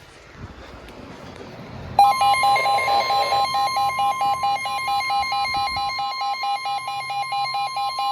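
NOAA Weather Radio alert: faint radio hiss, then about two seconds in the long steady warning alarm tone starts, with a weather radio receiver's alert beeping over it at about four beeps a second. It signals a severe thunderstorm warning.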